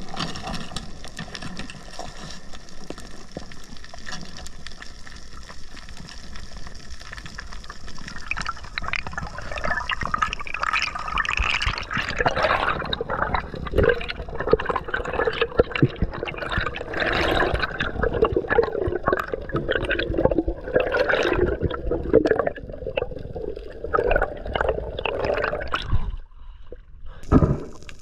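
Underwater water noise around a submerged camera as a diver swims: rushing and gurgling water. It grows louder and busier about a third of the way in and drops away briefly near the end.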